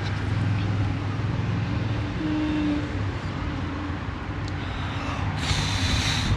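Road traffic running on wet pavement: a steady low engine hum, with a brief hissing rush about five and a half seconds in.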